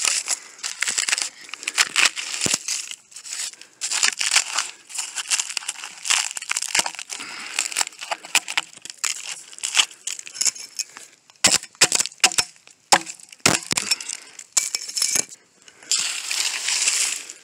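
Dry, rotten wood of a downed tree being torn apart by hand: splinters snapping and cracking in quick irregular bursts, with a longer stretch of crunching near the end.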